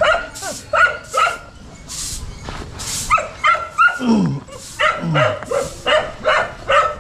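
A dog barking and yipping over and over in quick short calls, with a couple of falling whines about four and five seconds in.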